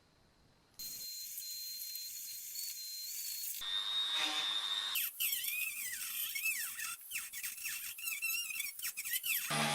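A high-speed handheld power tool whining in a few short edited clips, its high pitch steady at first and then wavering and dipping under load from about five seconds in, with scraping clicks.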